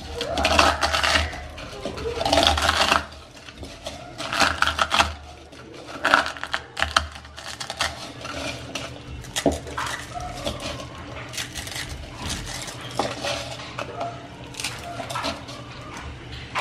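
Dry instant noodle blocks being crushed by hand in a plastic bowl: crunching and crackling, loudest in the first few seconds, then in shorter spells and lighter scattered crackles.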